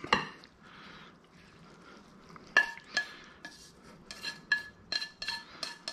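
Wooden chopsticks tapping and scraping against a stainless steel skillet as simmered beef and onions are pushed out of it onto rice. The taps start about two and a half seconds in, each with a brief metallic ring, and come more often toward the end.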